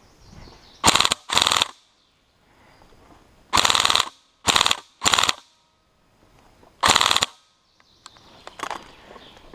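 Tokyo Marui HK416D electric airsoft rifle firing six short full-auto bursts, each a fast mechanical rattle of the gearbox cycling, under half a second long. The bursts come as two about a second in, three in quick succession around four to five seconds, and a last one near seven seconds.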